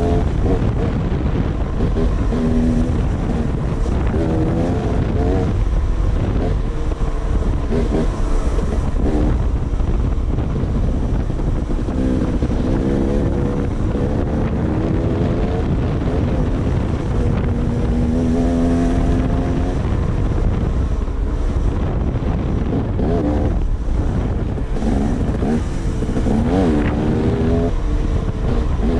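Dirt bike engine running under way, its pitch climbing and dropping again and again as the rider accelerates, shifts and backs off, with wind buffeting the microphone.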